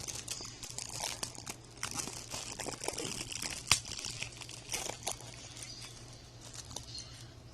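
Plastic shrink-wrap on a Blu-ray case crinkling and crackling as it is torn and peeled off by hand, with a sharp snap about halfway through.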